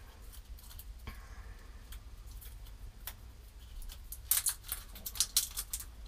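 Plastic packaging being handled and opened: a few faint crinkles and clicks, then a quick run of sharp crackles in the last two seconds.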